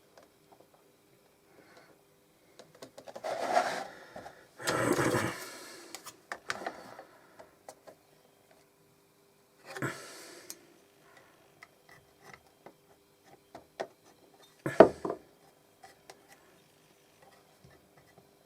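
A blade cutting through leather in a few scraping strokes, each lasting a second or so, with small clicks as the leather and tools are handled and one sharper knock about fifteen seconds in. A faint steady hum runs underneath.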